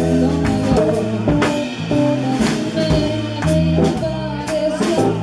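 Live Latin-jazz band playing, with steady bass notes, drum kit hits and a woman singing the lead.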